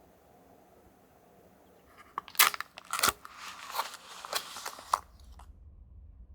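A run of sharp crunches and crackles starting about two seconds in and lasting about three seconds, then cutting off abruptly.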